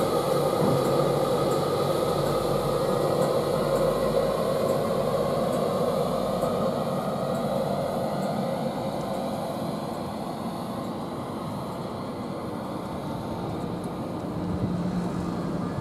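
Class 91 electric locomotive of an InterCity 225 pulling slowly out of the station past the platform, a steady electric whine over rumbling wheels. The sound fades as the locomotive moves off and the coaches roll by, and a lower hum swells near the end.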